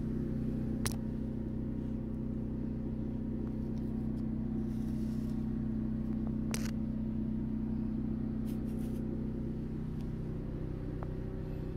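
Nissan Skyline R32 GT-R idling steadily through a straight-through muffler exhaust, heard from beneath the car. A couple of sharp clicks come through over the idle.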